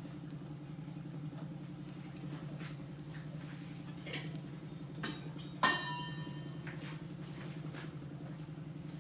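A steady low hum with a few faint taps, and one sharp metallic clink that rings briefly a little past halfway through, like a utensil knocking against cookware.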